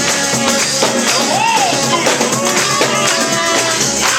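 Live gospel church band playing an uptempo song, with a tambourine shaken throughout.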